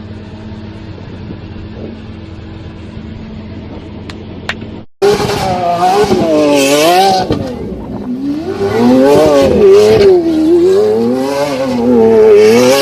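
A car engine running steadily at low revs, then, after an abrupt cut, a Lamborghini engine revved hard and loud, its pitch swinging up and down several times.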